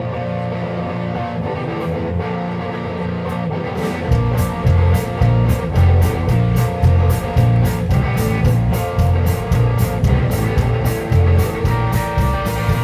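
Live rock band: an electric guitar plays alone at first. About four seconds in, the drums and low end come in with a steady beat and busy cymbals.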